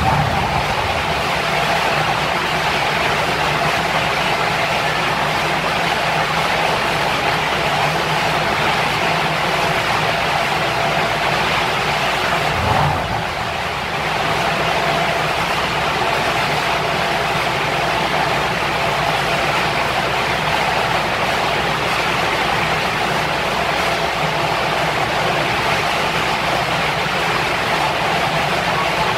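Mercedes-AMG C63 (W205) twin-turbo V8 idling steadily on a chassis dyno, mixed with the steady whir of the dyno's cooling fan. There is a brief dip in level about halfway through.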